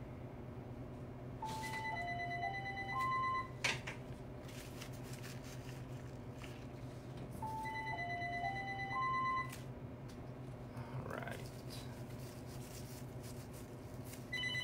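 A phone ringing unanswered: a short four-note ringtone melody over a steady high beep, lasting about two seconds each time. It rings twice about six seconds apart and starts a third ring at the end, with a sharp click just after the first ring.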